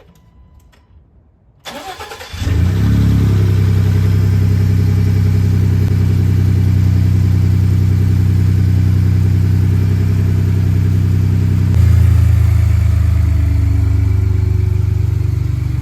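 2018 Ford F-150 pickup engine cranking and catching about two seconds in, then idling steadily. The idle grows slightly louder and deeper about twelve seconds in.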